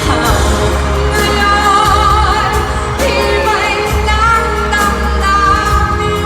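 Pop song: women singing a melody with vibrato over a band with a steady bass line.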